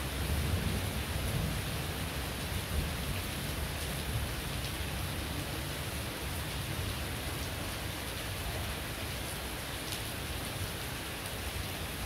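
Heavy rain falling steadily on the roof, yard and plants, a dense even hiss, with a low rumble swelling and then settling over the first few seconds.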